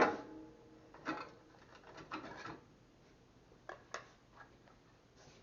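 Metal clinks and knocks from swapping a zip cut-off disc onto an angle grinder: a ringing clank at the start, then a few shorter knocks and rattles spread over the next four seconds. The grinder does not run.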